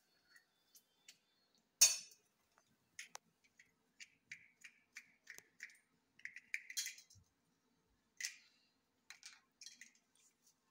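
Small clinks, taps and clicks of metal puja vessels and small containers being picked up and set down, with one sharper clink about two seconds in and a busier run of taps later.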